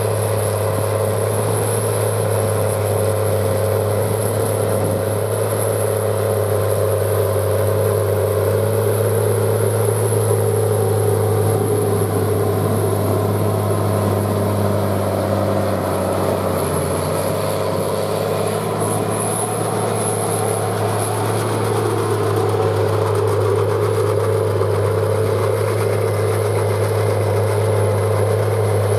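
Case IH tractor's diesel engine working steadily under load, driving a Pöttinger Jumbo loader wagon's pickup and rotor as it gathers a grass swath for silage.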